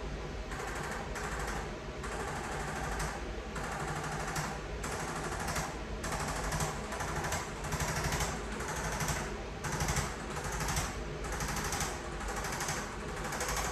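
A handheld electric percussion device running against the body, hammering rapidly in short bursts that start and stop about once a second over a steady motor hum.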